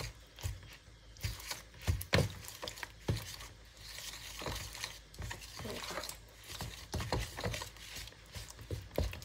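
Wooden spoon stirring coconut milk in a plastic bowl, with irregular light knocks and scrapes of the spoon against the bowl as red curry paste and coconut sugar are dissolved into it.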